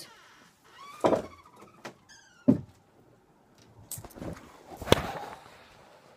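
A bedroom door knocking and thumping as a dog comes in, with a short squeak about two seconds in. Then rustling and a sharp click as the camera is picked up and handled.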